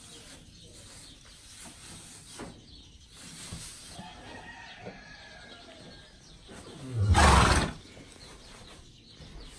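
A horse blows out hard through its nostrils once, a short noisy snort about seven seconds in. Chickens cluck faintly in the background.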